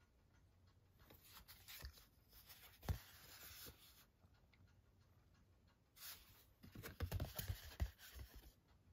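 Faint rustling and light tapping of a stiff printed art card being handled and turned over in the hands, with a soft knock about three seconds in and a cluster of small clicks and rubs in the last few seconds.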